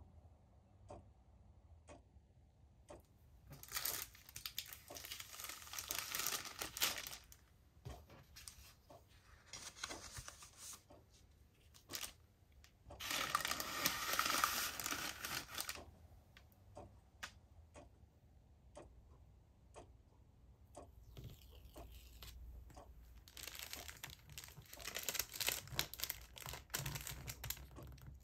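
Paper rustling and crinkling as thin striped paper bags are handled and smoothed flat, then stickers peeled off their backing sheet and pressed on; it comes in several bursts of a few seconds, with small taps in between.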